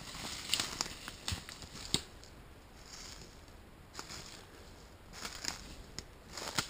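Footsteps crunching through dry leaf litter and small twigs, coming in clusters of crackles in the first two seconds, again about four seconds in, and between five and six and a half seconds.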